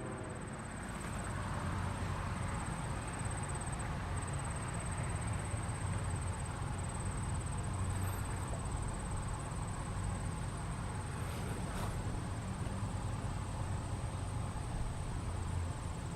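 Insects trilling steadily at a high pitch over a low, steady rumble.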